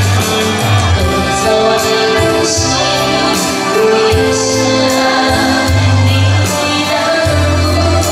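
A woman singing a Taiwanese Hokkien ballad into a microphone, accompanied by saxophone and electronic keyboard with a steady bass line.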